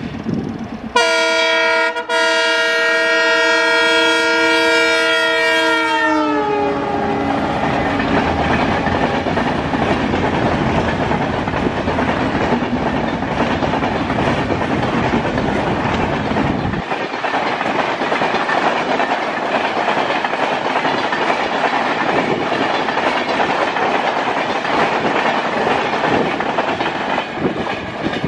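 WDM-3A diesel locomotive sounding its multi-tone horn for about five seconds, the chord sliding down in pitch at the end as the engine passes. Then the steady rush of the passenger coaches going by at speed.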